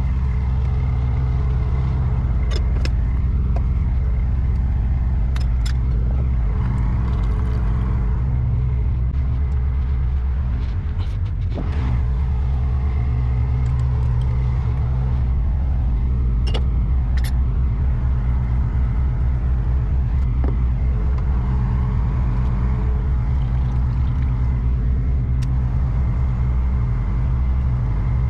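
A large engine idling steadily, a constant low hum, with a few light clinks and knocks scattered through it.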